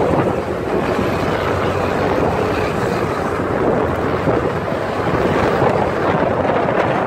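Steady engine, tyre and wind noise of a vehicle driving at speed, heard from inside the cab.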